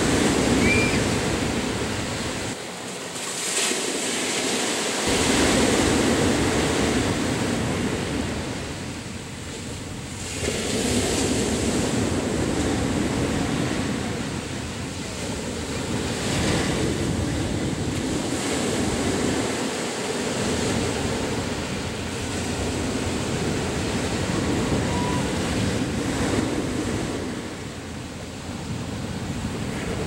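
Ocean surf breaking and washing up a sandy beach, a continuous rush that swells and eases every few seconds as each wave comes in.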